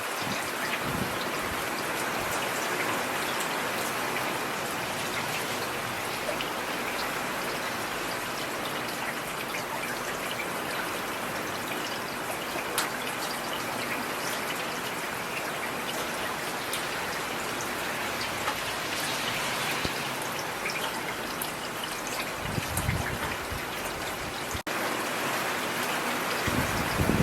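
Steady rain falling on a street, an even hiss with scattered individual drop splashes. A brief low rumble comes in late on.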